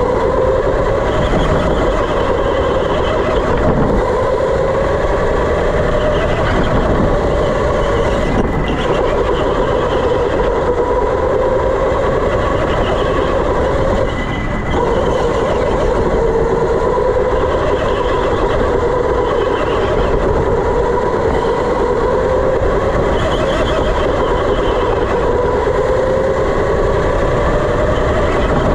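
Electric go-kart's motor whining steadily over a rushing noise, its pitch slowly rising and falling every few seconds as the kart speeds up and slows through the corners. The whine drops out briefly about halfway through.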